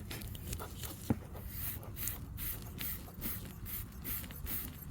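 Tire repair reamer tool being forced and twisted in a puncture in a car tire's tread, enlarging the hole for a plug: a sharp click about a second in, then repeated short rasping scrapes, about three a second.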